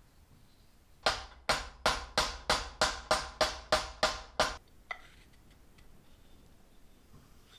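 Hammer blows, about eleven evenly paced strikes at roughly three a second, each ringing briefly, most likely driving the forged trowel's tang into its wooden handle.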